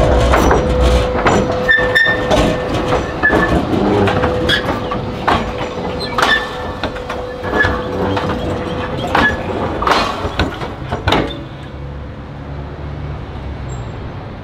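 Tram wheels clunking and clacking over the rails of a portable crossover bolted on top of the existing track: a long run of sharp, uneven knocks over a steady tone and low rumble. The knocks stop about eleven seconds in, leaving a quieter rumble as the tram moves off.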